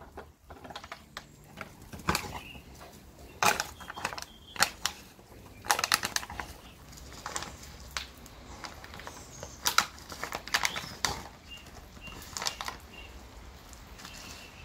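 A dog chewing and mouthing a plastic bottle: irregular crackling and crinkling clicks of the plastic, some single, some in quick clusters.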